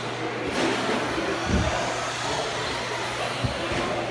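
Redcat Volcano EPX Pro electric RC trucks racing on an indoor dirt track: a steady mix of motor and tyre noise echoing in a large hall, with two low thumps, about a second and a half and three and a half seconds in.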